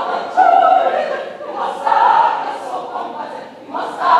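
A choir singing a devotional song in phrases that swell and fall about once a second, with sharp sung consonants on top.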